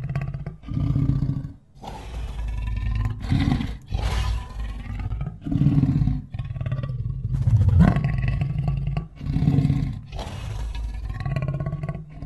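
Lion sound effect standing in for the extinct Mosbach lion: a run of deep roars and growls, about eight calls of a second or two each with short breaks between them.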